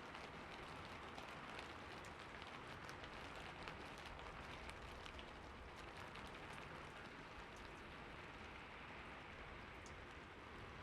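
Rain falling steadily on a rooftop: a soft, even hiss with many individual drops ticking sharply through it, more of them in the first half.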